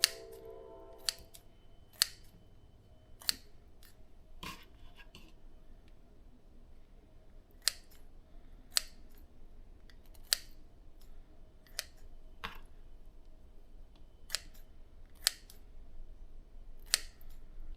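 Scissors snipping raw shrimp into small pieces: about a dozen short, sharp snips at an uneven pace, roughly one a second.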